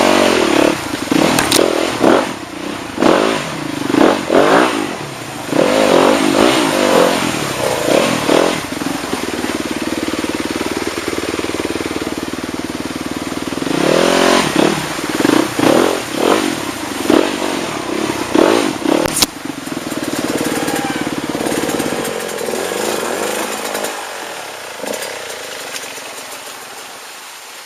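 Motorcycle engine running and revving in repeated surges, then dying away over the last few seconds.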